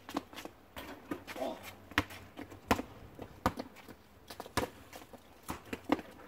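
A basketball dribbled on an asphalt driveway: a series of sharp bounces, most about three-quarters of a second apart, with lighter sneaker steps and scuffs between.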